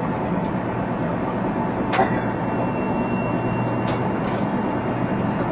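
JR Central 373 series electric train (set F2, noted for an unusual running noise) running between stations, heard from inside the car as a steady rumble with a low hum. A sharp click comes about two seconds in, followed by a thin steady whine lasting about two seconds. Two fainter clicks follow near the end of the whine.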